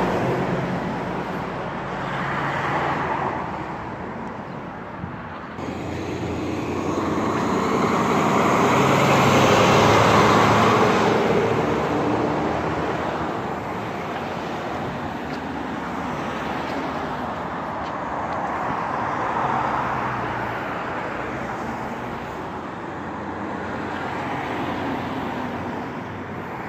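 Street traffic: several vehicles driving past close by, one after another, each swelling and fading. The loudest pass is about ten seconds in.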